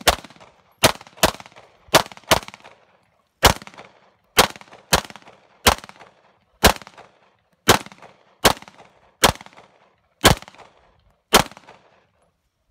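Handgun fired in a rapid string of about fifteen shots, in quick pairs and singles half a second to a second apart, each followed by a short echo.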